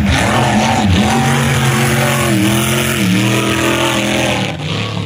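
Racing speedboat's engine running hard at high revs as it speeds down the water, its pitch dipping briefly and climbing back several times, then falling off near the end.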